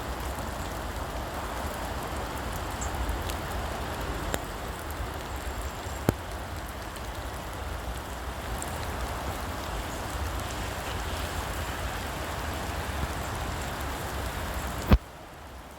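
Heavy rain pouring steadily. There is a sharp knock about six seconds in and a louder one near the end, after which the sound is suddenly quieter.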